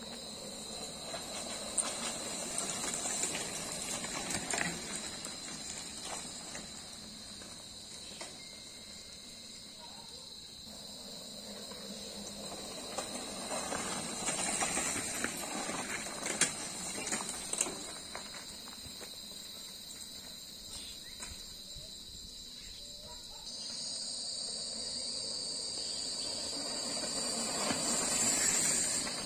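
Mountain bikes riding past in bunches on a dirt track: tyre noise swells three times as groups of riders pass, with a few sharp clicks and rattles, over a steady high buzz of insects.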